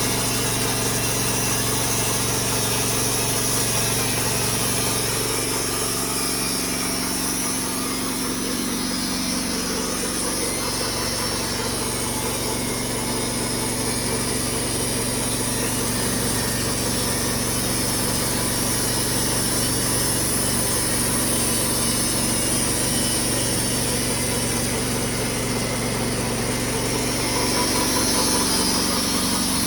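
Hudson portable sawmill's engine running steadily, holding an even pitch throughout.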